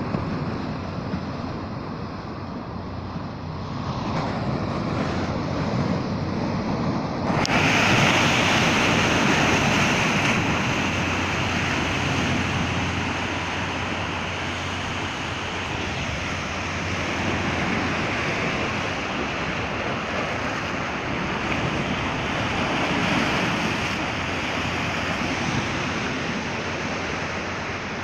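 Ocean surf breaking and washing over a rocky shore, with wind on the microphone. It gets louder and hissier about a quarter of the way in.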